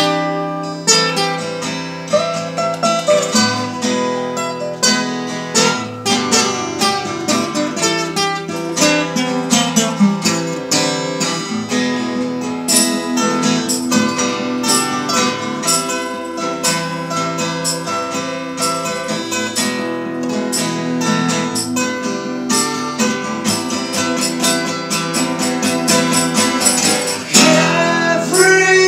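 Two acoustic guitars playing a folk song together, picked and strummed. Singing starts near the end.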